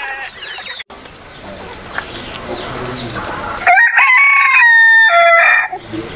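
A rooster crowing once, about four seconds in: a loud call of about two seconds that holds one high note, steps down, and drops at the end.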